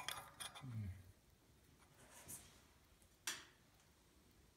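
Faint rubbing and scraping of a copper pipe being handled and test-fitted against brass pipe fittings, with a sharp click at the start and a short scrape about three seconds in.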